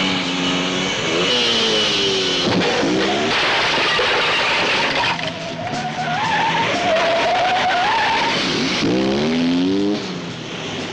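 Motor vehicle engines revving up and down, with a long wavering tyre squeal in the middle of the passage.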